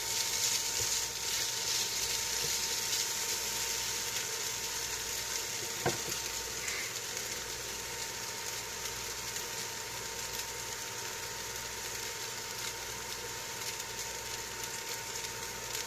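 Pre-cooked rotisserie chicken breast strips sizzling steadily as they reheat on the cooker, with a single light knock about six seconds in.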